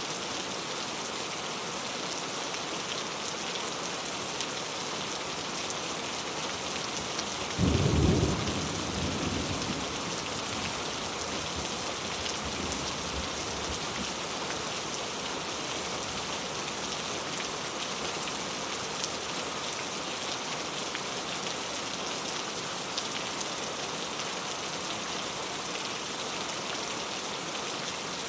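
Steady rain falling, an even hiss of drops. About eight seconds in a clap of thunder breaks in, the loudest thing here, and rumbles away over the next few seconds.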